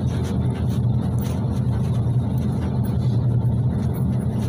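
Cabin noise inside a PAZ-32054 bus under way: a steady low engine drone with road noise.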